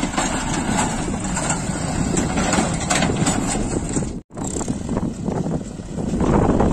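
Heavy diesel engines of tractors and a backhoe loader running under load, with the sound cutting out for an instant about four seconds in and growing louder near the end.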